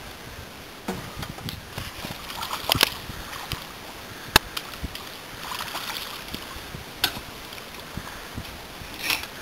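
Fishing gear being handled: scattered sharp clicks and knocks, the loudest about four seconds in. Brief splashing of water comes as a landing net is dipped into the water.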